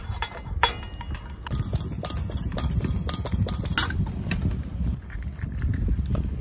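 A few light metallic clinks of a small stainless steel bowl and chopsticks against a stainless steel pot, over a low rumble.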